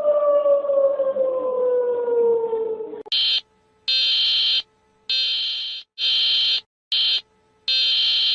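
Emergency warning siren tone sliding slowly down in pitch for about three seconds, then cutting abruptly into a run of shrill electronic alarm beeps, about six of uneven length with short silent gaps between them.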